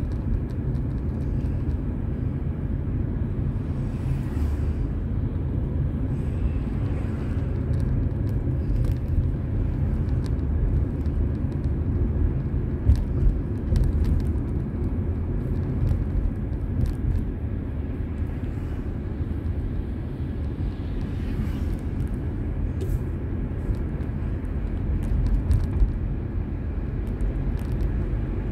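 Car interior road noise from a dashboard camera on a moving car: a steady low rumble of tyres and engine, with small clicks and a couple of brief louder bumps.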